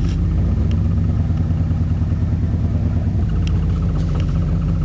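Chevrolet K1500 pickup's 305 cubic-inch V8 running steadily as the truck rolls slowly, heard from inside the cab, with a few light clicks.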